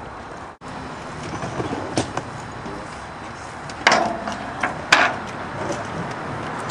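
Film equipment being handled at the back of a van: a few light knocks, then two loud metallic clanks about a second apart, each with a short ring, over steady outdoor background noise.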